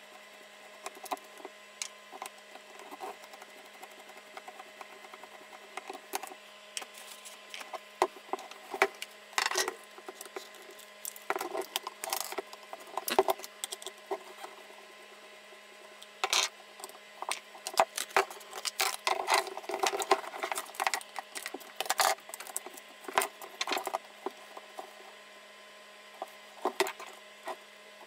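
Small screws being undone with a screwdriver and the side panels of a JVC GX-78 video camera handled: irregular clicks, scrapes and light knocks, busier in the second half, over a faint steady hum.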